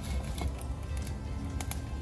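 Background music with a steady low bass beat, with a few light knocks.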